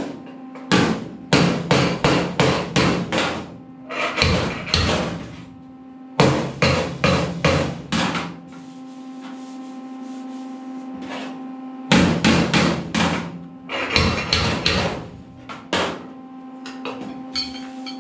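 Homemade slide-hammer dent puller pulling a dent out of a 1952 Ford truck's steel cab panel: runs of sharp metal clanks, several a second, in bursts with pauses between, over a steady hum.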